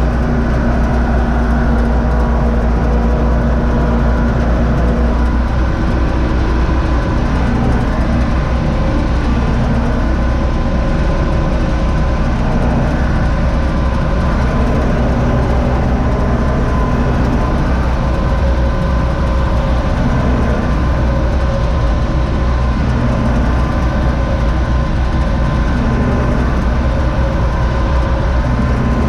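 Universal U650 tractor's four-cylinder diesel running steadily under load, heard inside the cab, mixed with the running machinery of the trailed Zmaj-Zemun 223 corn picker during corn harvesting.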